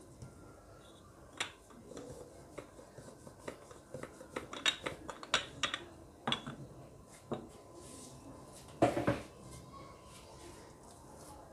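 Irregular light clicks and knocks of hands and a wooden rolling pin working a round of dough on a floured counter, with a louder double knock about nine seconds in.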